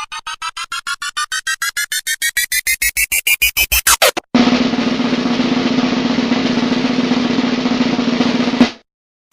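Two meme sound effects back to back. First comes a fast drum-roll-like run of pulses that speeds up and climbs in pitch, ending in a quick upward sweep about four seconds in. Then comes a harsh, noisy buzz over a steady low hum, which cuts off suddenly near the end.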